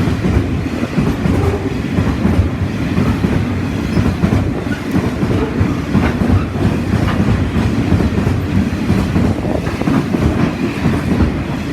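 Container freight train hauled by 81 class diesel locomotives rolling past close by, a loud, steady rumble of wagons and wheels on the rails.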